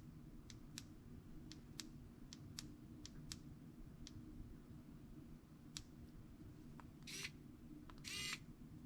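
Faint clicking of the buttons on a mini electric precision screwdriver, pressed one after another, about one or two clicks a second. Near the end come two short buzzes.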